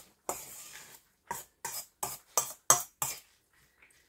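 A metal utensil scraping and knocking against a stainless steel bowl while mixing beetroot salad: one longer scrape near the start, then six quick knocks about a third of a second apart.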